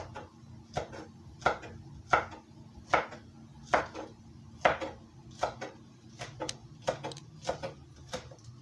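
Chef's knife chopping green onions on a wooden cutting board: an even run of knife strikes, a little more than one a second.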